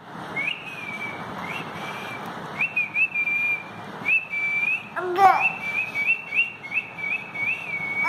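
Someone whistling to a baby in a quick run of short, high notes, each sliding up and then holding or dipping. About five seconds in, the baby gives one short coo that falls in pitch.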